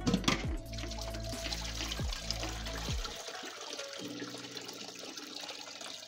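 Coconut milk pouring steadily from a large pot through a perforated aluminium strainer into a pot below, with a knock at the very start, over background music.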